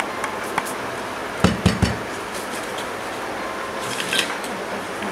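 Knocks and light clicks on a steel plate of sifted flour on a table: a few light clicks, then three quick heavier knocks about a second and a half in, and more clicks near the end, over a steady background hiss.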